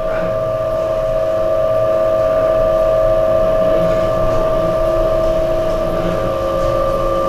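Motor-driven wooden oil press (chekka ganuga) running, grinding seeds for oil: a steady whine from its electric motor and gear drive, with a faint low pulsing underneath.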